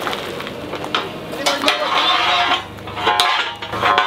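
Metal clanks and knocks from a forklift's steel forks and the fork extensions slid over them being handled, several sharp knocks spread across a few seconds.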